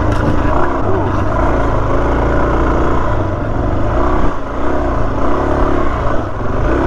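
Suzuki DRZ400S's single-cylinder four-stroke engine pulling the dual-sport bike along a dirt trail, its pitch rising and falling as the throttle opens and closes.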